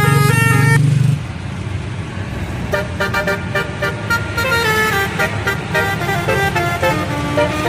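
Bus 'telolet' musical horn playing a quick stepping tune over a running bus engine. The tune stops abruptly about a second in, and a new telolet melody starts near three seconds in.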